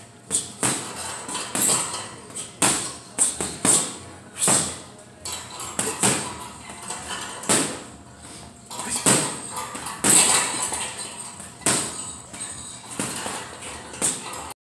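Gloved punches landing on a teardrop-shaped heavy bag: sharp thuds in irregular combinations, sometimes three or four in quick succession, with short pauses between flurries.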